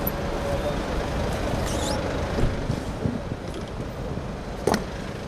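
Steady road-traffic and vehicle engine noise, with a short faint squeak about two seconds in and a sharp click near the end.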